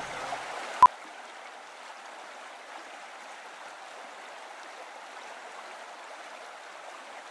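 Steady rushing of a stream flowing, with one sharp click a little under a second in.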